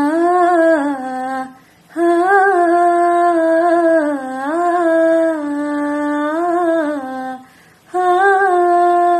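A woman singing unaccompanied in three long, held, ornamented phrases with no clear words, pausing briefly about a second and a half in and again near the end.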